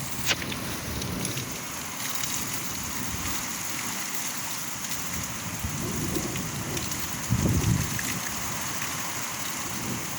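Wind buffeting the microphone outdoors in uneven low gusts, strongest about six and seven and a half seconds in, over a steady hiss, with a single sharp click just after the start.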